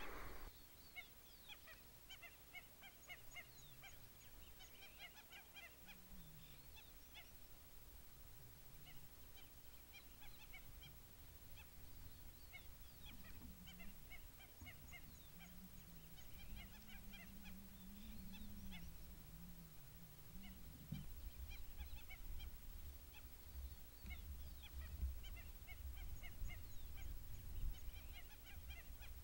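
Flock of flamingos calling: many faint, short, goose-like calls scattered throughout, often overlapping. A low rumble underneath grows stronger in the second half.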